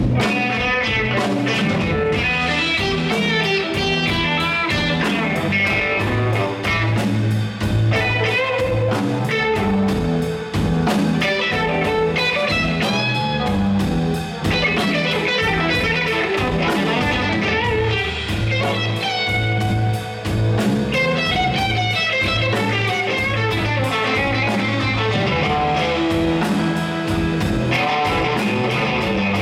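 Live band playing loud instrumental music: electric guitar over bass and drums, with a steady beat.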